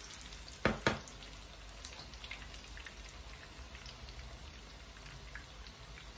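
Zucchini fritters (mücver) shallow-frying in hot oil in a pan, a steady sizzle with many small pops and crackles. Two sharp knocks come close together just under a second in.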